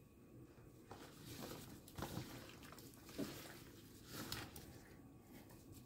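Faint, wet squishing of gloved hands working raw chicken wings through an egg and hot sauce marinade in a plastic tub: a few soft squelches roughly a second apart.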